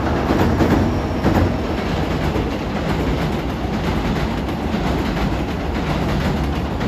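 Hankyu electric commuter trains crossing a railway bridge: a steady rumble of steel wheels on the rails.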